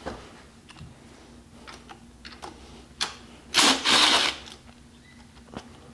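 Socket tool on a long extension being worked on a bolt at the top of the engine: a few separate clicks, then a brief loud rattling whirr about three and a half seconds in.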